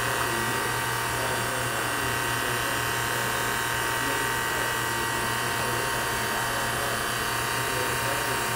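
Benchtop servo drill press running with its chuck spinning free, giving a steady mechanical whine made of several constant tones.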